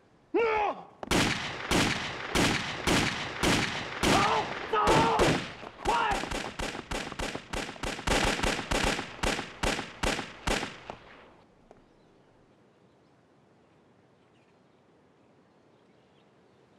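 A rapid string of pistol shots, about twenty-five sharp cracks over some ten seconds, coming faster towards the end. The firing stops about eleven seconds in.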